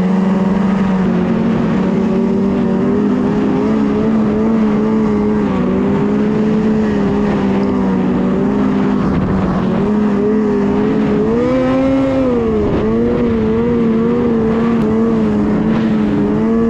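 Ski-Doo snowmobile engine running at a steady cruising pitch, with the revs briefly rising and then dropping back about twelve seconds in.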